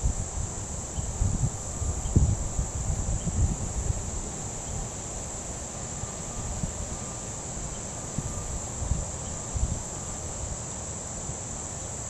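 Steady high-pitched drone of an insect chorus, with irregular low rumbles that are strongest in the first few seconds.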